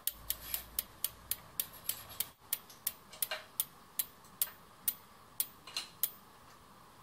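Mechanical ticking from a bicycle part, about four sharp clicks a second that slow slightly and stop about six seconds in.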